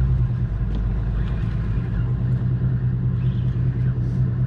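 Outboard motor of a centre console fishing boat running steadily, a constant low hum with a haze of noise over it.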